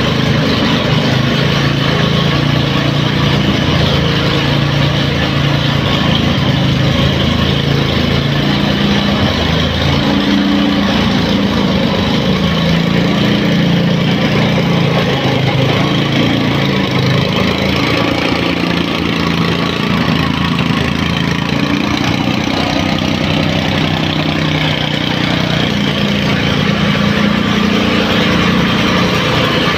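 Engine-driven soil stamper (tamping rammer) running steadily, its small engine pounding the foot rapidly against the ground to compact the soil.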